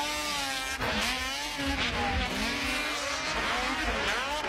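A snocross racing snowmobile's two-stroke engine revving up and down, its pitch rising and falling about once a second as the throttle is worked over the jumps.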